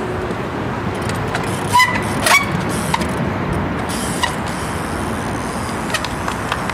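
Steady city street and tram traffic noise. About two seconds in come two sharp knocks with short squeaks, as the trials bike drops off the concrete bollard and lands.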